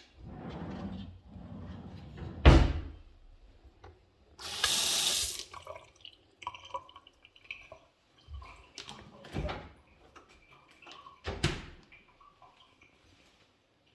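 A water tap turned on and running in a short rush for about a second, with several knocks and thumps of handling around it, the loudest just before the water.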